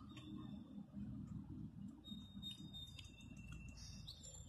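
Outdoor ambience: a low, uneven rumble with short high bird chirps starting about two seconds in.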